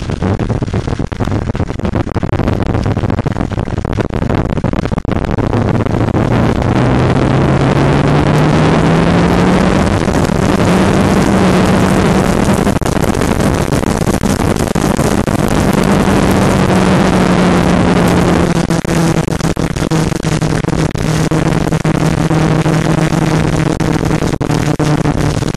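Motorcycle engine running at road speed under heavy wind rush over the microphone. The engine note rises steadily as it speeds up about a quarter of the way in, holds, then drops to a lower note about two-thirds of the way through.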